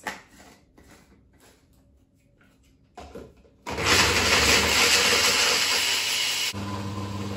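Personal bullet-style blender grinding dried avocado seed pieces into powder. After a few light clicks as the cup is fitted onto the base, the motor starts about three and a half seconds in with a loud, gritty grinding, then drops to a quieter, steadier hum about a second before the end.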